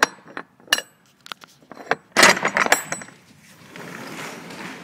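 Metal latch on a box truck's rear cargo door clicking and knocking as it is worked open. Then a loud metallic clatter about two seconds in, followed by a softer steady rumble as the door is opened.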